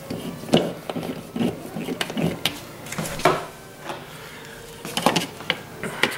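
Irregular clicks and knocks of a hand screwdriver driving screws through a plastic alarm keypad back plate on a wall. A torpedo level is set against the plate near the end.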